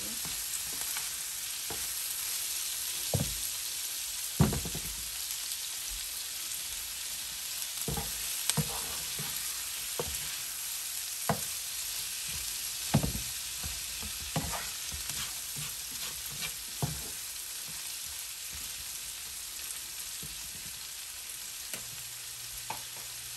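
Prawns, onion and green chillies sizzling in oil in a nonstick frying pan, with the spatula knocking and scraping against the pan now and then as they are stirred. The sizzle runs steadily while the knocks mostly come in the first two-thirds, the loudest about four seconds in.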